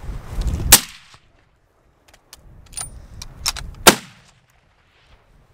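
Two rifle shots about three seconds apart, fired at running wild rams, with a few light metallic clicks between them.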